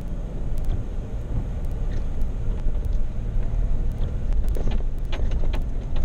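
Vehicle driving slowly over a rough dirt track: a steady low engine and road rumble, with scattered sharp ticks and rattles, several close together near the end.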